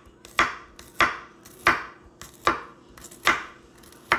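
Kitchen knife slicing peeled garlic cloves on a wooden cutting board: six sharp knife strikes against the board at an even pace, a little under a second apart.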